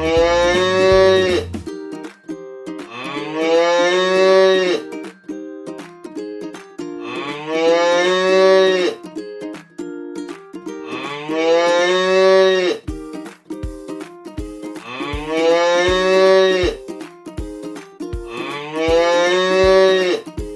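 Domestic cow mooing: six long, drawn-out moos about four seconds apart, each rising and then falling in pitch.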